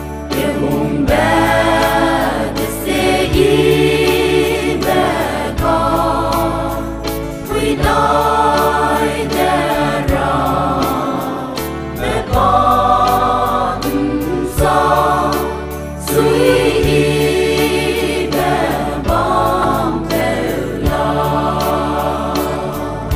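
Mixed choir of men and women singing a hymn in harmony, phrases of a second or two rising and falling, over low sustained accompaniment notes with a faint steady beat.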